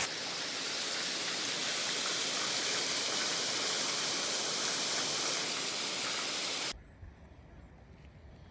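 A waterfall's steady rushing hiss, which cuts off suddenly near the end to a faint low rumble.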